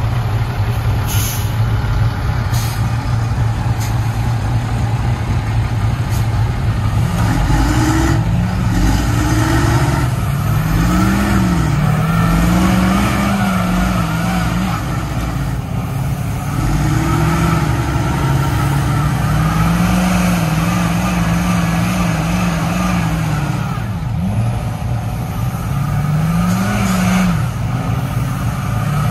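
Heavy diesel engines of an FMTV army 6x6 truck and a lifted pulling truck running hard under load in a tug-of-war, the revs rising and falling again and again over a steady deep drone.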